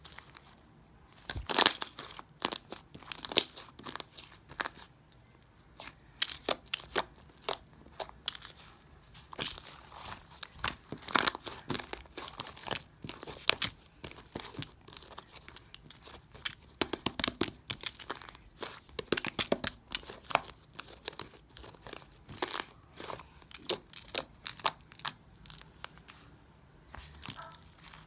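Hands squishing and pressing slime, giving irregular runs of sharp crackling clicks and pops with short pauses between them.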